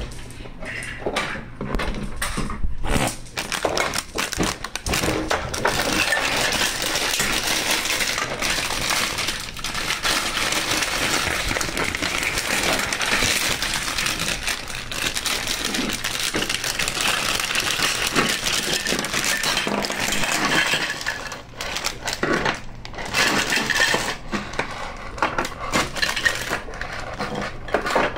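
Plastic LEGO DUPLO bricks clattering and clicking as they are handled, with a plastic bag of pieces rustling. There is a dense run of rustle and clatter through the middle, and sharper separate clicks near the start and the end.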